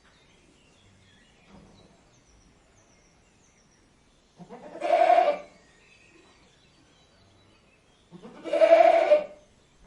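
Goat bleating twice: two loud, drawn-out calls of about a second each, about four seconds apart.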